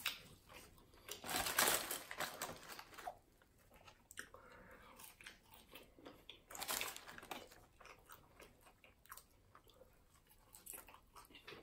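Person chewing and biting food close to the microphone, faint, in a few short spells with small clicks between them.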